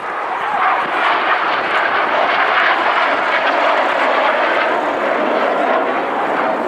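Display aircraft flying past, its engine noise a loud, steady rush that swells over the first second.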